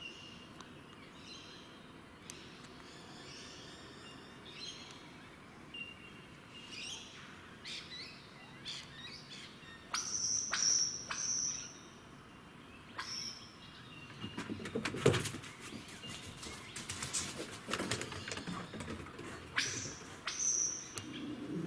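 Bird song of short whistles and chirps, including paired high whistle notes, with a run of rapid sharp clicks through the middle; the birds are taken for lyrebirds.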